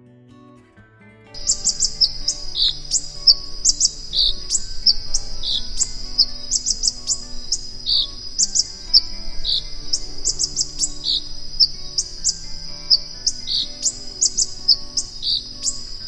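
A bird singing a rapid, high-pitched song of quick thin notes over a steady high tone, with a lower note about every second and a half. It starts suddenly about a second and a half in.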